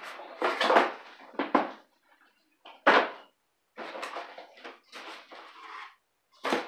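Large cardboard box being handled and shifted: a run of knocks and scrapes, a louder knock about three seconds in, a couple of seconds of rustling and scraping, then another sharp knock near the end.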